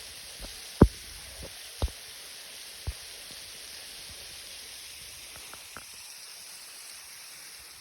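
Steady hiss of a thin, barely flowing waterfall spattering down a 216-foot drop, with a few short knocks in the first three seconds and two more after about five seconds.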